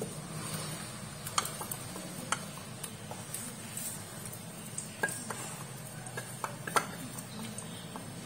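Wooden spatula stirring onion and green chilli paste in hot oil in a non-stick kadai. The spatula knocks and scrapes against the pan in irregular sharp clicks, the loudest about seven seconds in, over a steady low frying noise.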